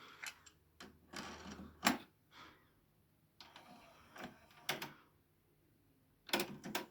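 Clicks and clunks from a Technics RS-B965 cassette deck being operated, its cassette door and transport buttons working the mechanism. The clicks come singly and in small groups with quiet gaps, the loudest a little under two seconds in.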